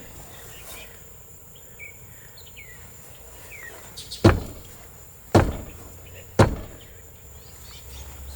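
Three hard kicks against a truck camper's crooked jack stand, sharp knocks about a second apart.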